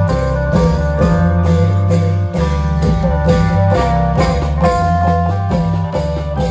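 Isan long-drum band music: a plucked string melody in quick repeating phrases over steady bass notes and regular drum strokes.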